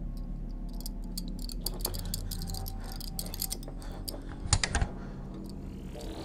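Rapid light clicking and rattling over a low steady drone, with a louder cluster of about three clicks some four and a half seconds in and a rising swell starting near the end.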